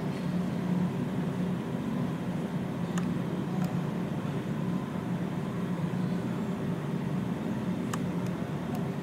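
Steady low hum, with a few faint clicks.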